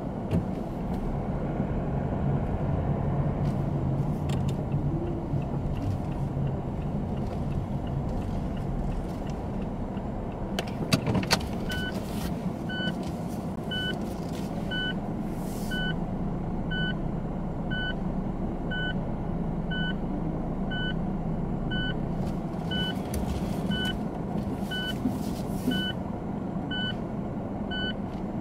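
Steady engine and tyre rumble inside a car moving slowly, with a few clicks about eleven seconds in. From about twelve seconds in, a short electronic beep repeats roughly once a second, like a car's reverse-gear warning.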